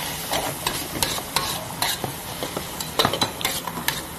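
Metal spatula scraping and knocking against a wok as sliced palm shoots are stir-fried, with several irregular clicks a second over a steady sizzle of hot oil.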